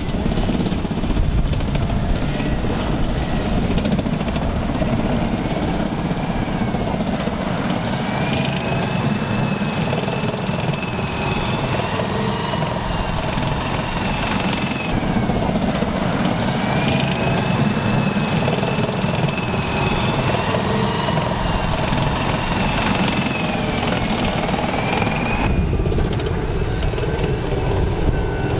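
M1 Abrams tanks driving, their gas turbine engines whining over a steady low rumble; the whine wavers up and down in pitch, strongest through the middle, and the high part drops away near the end.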